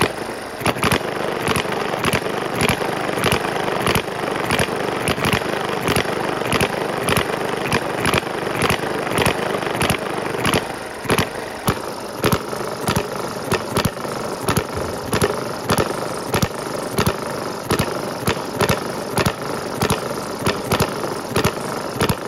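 Microcosm miniature hit-and-miss engine running under the load of a belt-driven generator. It fires in sharp, slightly irregular pops about two to three times a second, with steady mechanical clatter between them.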